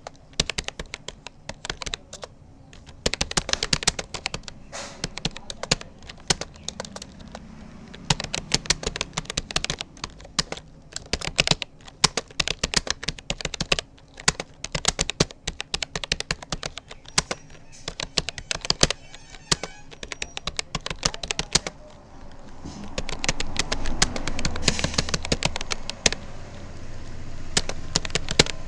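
Rapid touch-typing on a Rapoo computer keyboard: a dense, uneven stream of key clicks with short pauses between bursts. For a few seconds near the end, a louder background noise rises under the typing.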